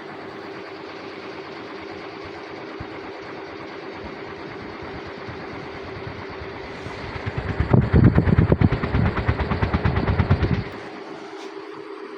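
Multi-bladed electric fan running with a steady hum and a rush of air. From about seven seconds in, a loud rapid rattling lasts for about three and a half seconds and then stops suddenly, leaving the steady running.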